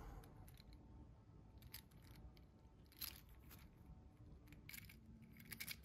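Near silence with a few faint clicks from the jointed segments of a 3D-printed plastic articulated dinosaur being flexed and folded in the hands; the clearest click comes about three seconds in.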